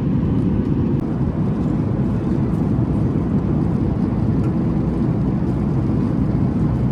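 Steady cabin rumble of a Boeing 737 MAX 9 airliner in flight: engine and airflow noise, deep and even.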